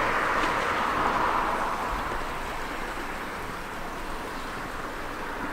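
Steady rushing noise of a passing road vehicle, loudest in the first second and slowly fading.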